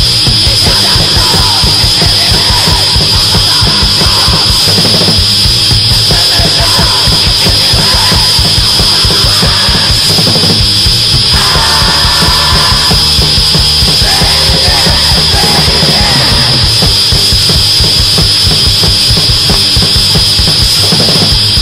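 Loud, fast noise-punk music: rapid drumming under a dense, unbroken wall of distorted sound.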